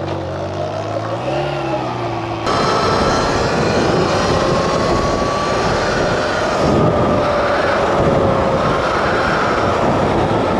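A motorcycle engine running, with a brief rev about a second and a half in. About two and a half seconds in, a sudden, louder rush of wind noise takes over, carrying a whine that slowly rises and falls in pitch.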